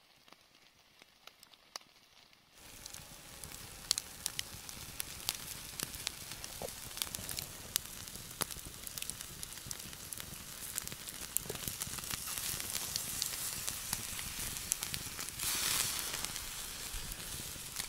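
Chicken and pork sizzling on a wire grill grate over an open wood fire, with the fire crackling in frequent sharp clicks. After a faint start the sizzle comes in suddenly about two and a half seconds in and holds steady, swelling briefly near the end.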